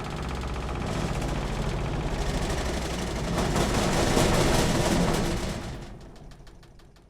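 Washing machine running with a fast, even rattle, loudest about four seconds in, then winding down and fading out near the end, the rattle slowing as it fades.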